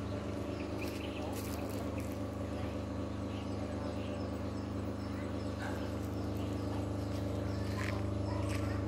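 Vehicle engine idling steadily as a low hum, with faint short chirps and a few light clicks over it.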